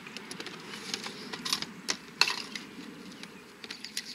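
Light clicks and clatters of cooking utensils and a plastic organizer tray being handled and shifted, a handful of sharp ticks scattered irregularly through.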